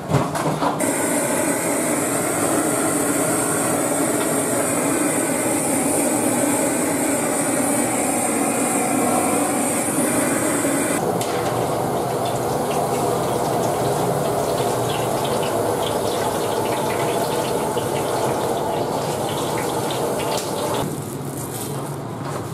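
A steady rushing hiss for about the first half, then water running from a tap into a large metal wok, splashing.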